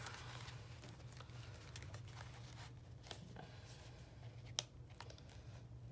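Faint rustling and handling of paper pages in a binder journal, with a single sharp click about four and a half seconds in.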